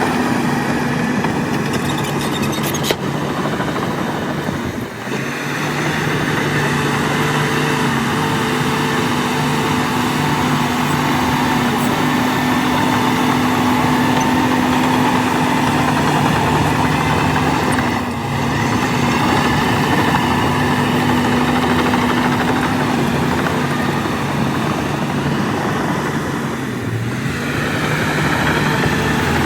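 Shantui DH17 C2 bulldozer's diesel engine running steadily under load, with three brief dips in level and a single sharp click about three seconds in.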